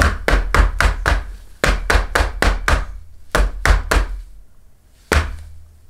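Plastic blister pack of Pokémon booster packs knocked repeatedly against a hard surface, to jolt the shifted packs back into place. Quick runs of sharp knocks: about six, a short pause, about seven more, three more, then a single knock near the end.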